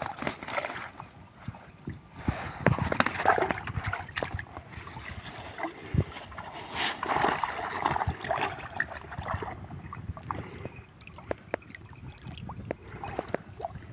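Water sloshing and splashing around a person wading chest-deep through a weedy pond, with a plastic bag rustling in the first half. It is busiest in the first two-thirds and quieter near the end.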